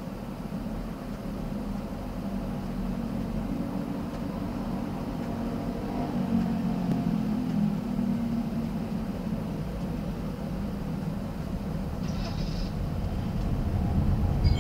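Steady road and engine noise of a Toyota RAV4 driving, heard from inside the cabin: a low rumble with a hum that swells for a few seconds mid-way. A brief high-pitched sound comes about twelve seconds in.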